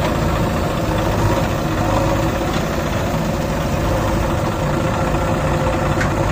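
Swaraj 744 FE tractor's three-cylinder diesel engine running steadily with no change in revs.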